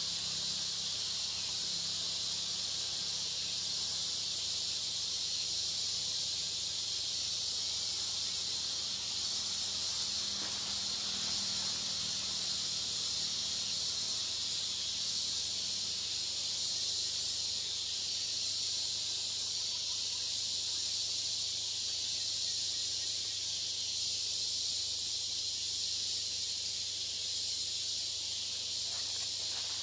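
Steady high-pitched hiss of a forest insect chorus, unbroken and even.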